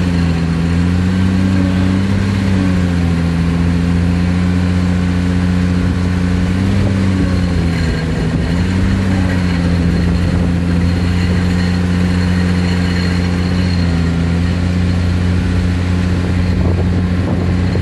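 Excavator-mounted vibro hammer working a steel sheet pile, together with the excavator's diesel engine under load: a loud, steady, low drone whose pitch dips and recovers slightly a few times.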